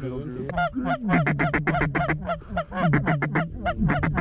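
A hand-blown waterfowl call worked in a fast, rhythmic run of short honking notes, about five or six a second, in a few bursts with brief breaks, calling to circling mallards.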